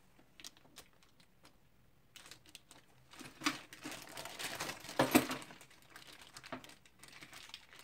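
A clear plastic bag of small assembly hardware being handled and crinkling, with the small metal parts inside clicking and rattling. A few separate clicks come first, then a busier stretch of rustling and clicking that is loudest about five seconds in.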